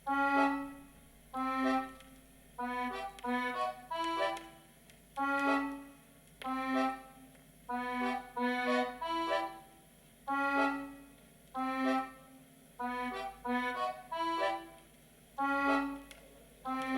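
JBL Boombox 2 portable Bluetooth speaker playing a dance song: a melody of short, separate notes in repeating phrases, with little deep bass showing.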